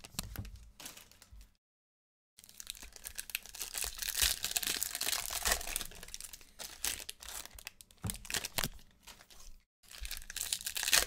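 Crinkling and rustling of a foil trading-card pack wrapper and cards being handled and opened, cutting out briefly twice.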